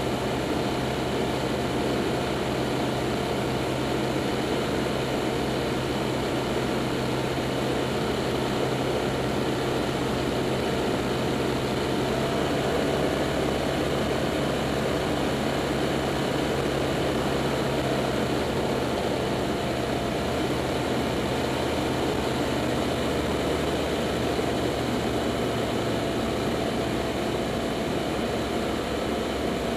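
Light single-engine propeller airplane's engine droning steadily in cruise, heard from inside the cockpit.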